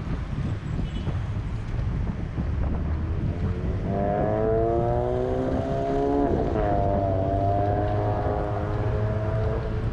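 Wind rumbling on the microphone of the moving bicycle. From about four seconds in, a motor vehicle's engine is heard nearby: its pitch rises slowly, drops suddenly about six seconds in, then holds steady almost to the end.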